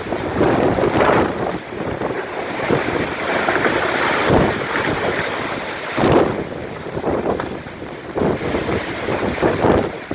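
Hurricane wind gusting and buffeting the microphone, rising and falling in surges, strongest about a second in, again around four to five seconds in and once more at about six seconds.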